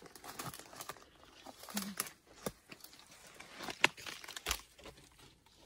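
Footsteps and brushing through dry leaf litter and undergrowth: irregular crackles and snaps of dry leaves and twigs, with a few sharper cracks near the middle.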